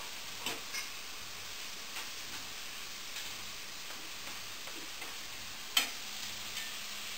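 Marinated steak pieces sizzling steadily in a hot pan as they are turned over with a fork. A few light clinks of the fork against the stainless steel pan are heard, and one louder clink comes late on.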